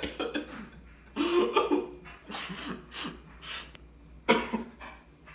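A young man coughing hard in several bursts, the loudest at the start and about four seconds in, his throat burning from a swallow of whiskey.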